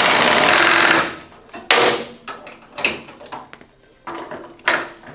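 Impact wrench rattling at a motorcycle's rear wheel nut for about a second, followed by several sharp metal clanks of tools and wheel parts.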